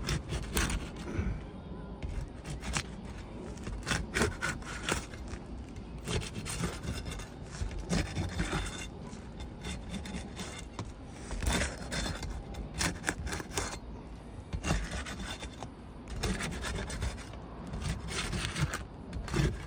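Steel flat bar scraping and prying under asphalt shingles to work out a roofing nail, in repeated rough scraping strokes.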